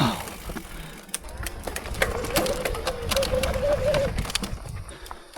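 Mountain bike clicking and rattling over a rough trail, with a steady wavering whine lasting about two seconds in the middle.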